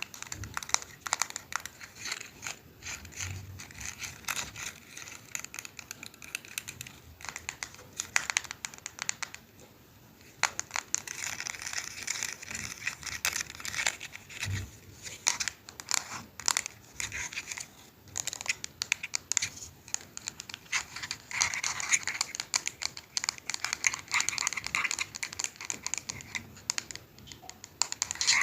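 Dense, irregular crackling and clicking, many small sharp clicks in quick succession, with stretches of soft hiss and a brief lull about ten seconds in.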